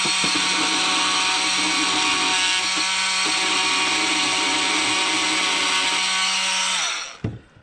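Oscillating multi-tool with a thin 10-12mm blade, turned down to speed setting 3, running at a steady pitch as it cuts a slot in plasterboard. It is switched off near the end, and the hum winds down and stops.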